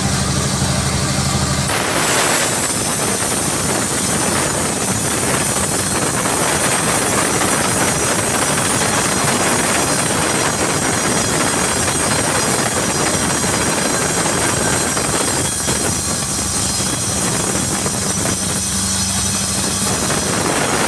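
A sawmill's engine idles, then about two seconds in the saw bites into a jackfruit log and cuts steadily through the wood, a loud dense rasp with a high whine from the blade.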